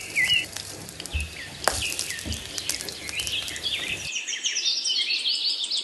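Cumin seeds crackling and popping in hot coconut oil in a wok. Birds chirp repeatedly in the background, more busily in the second half.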